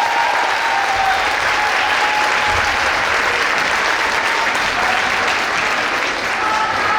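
Audience applauding steadily, with voices shouting and cheering over the clapping.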